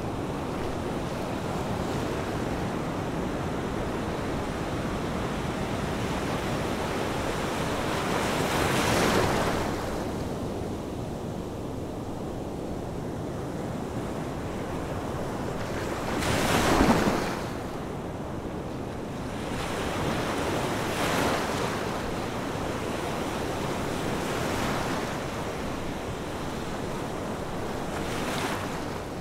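Rushing, surf-like noise with no tune, swelling louder five times as if waves were washing in, the loudest swell a bit past halfway.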